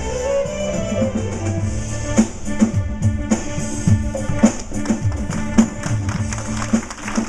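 Upbeat music from a stage band with violin. A drum kit beat comes to the fore about two seconds in, with hits about twice a second.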